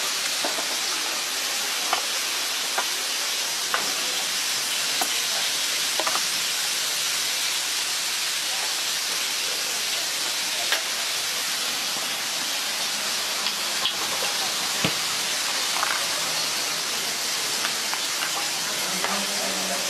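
Steady sizzle of kielbasa sausages and onions frying in a large flat pan, with occasional light clicks of metal tongs.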